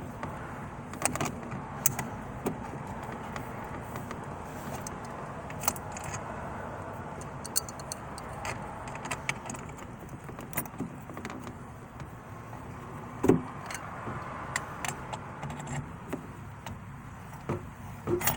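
Scattered metal clicks, clinks and small knocks from the lock plate compressor tool being worked off a tilt steering column, with one louder knock about two-thirds of the way through.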